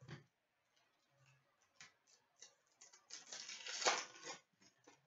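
Trading cards tapped and slid onto a glass counter, then a hockey card pack's foil wrapper crinkling and tearing open for about a second and a half, the loudest part.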